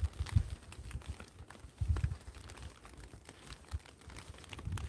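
Scattered raindrops ticking on an umbrella overhead, with a few dull footstep thuds on wet pavement, heard through in-ear binaural microphones.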